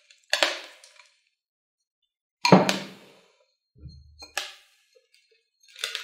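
Metal bonsai tool scraping and prying through gritty bonsai soil (pumice, zeolite, fired clay balls) against the inside of a ceramic pot, in several short crunching scrapes and clinks. The loudest is about two and a half seconds in, with a soft low knock just before four seconds.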